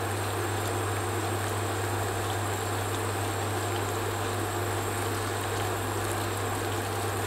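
Sugar-and-water syrup boiling in a stainless steel saucepan, a steady bubbling hiss of large bubbles as the syrup heats toward 116 °C. A steady low hum runs underneath.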